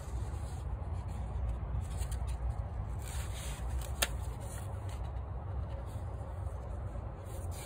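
Pages of a thin paper booklet being turned by hand: soft paper rustling, with one sharp tick about four seconds in, over a steady low hum.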